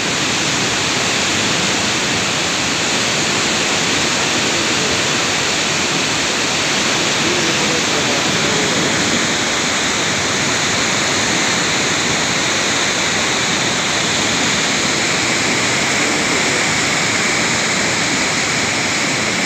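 Mountain stream in flood rushing: a loud, steady, unbroken noise of fast muddy floodwater.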